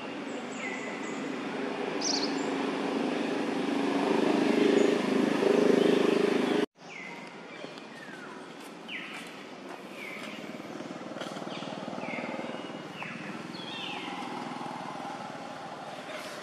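A motor vehicle's engine running, growing louder over the first six seconds and then cutting off suddenly. Birds call throughout with repeated short, falling chirps.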